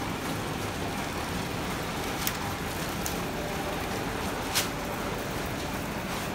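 Old roller printing press running with a steady mechanical clatter, with two sharp clacks, the louder one about four and a half seconds in.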